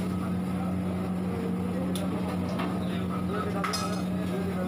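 Steady low mechanical hum of kitchen machinery beside a gas-fired wok, with sharp clinks of metal utensils about two seconds in and again just before four seconds.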